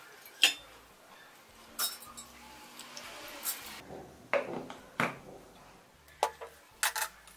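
Clinks and knocks of a stainless-steel mixer-grinder jar being handled as it is loaded with soaked grains and its lid fitted. There are about seven sharp knocks spread over several seconds, with a faint rustle between them.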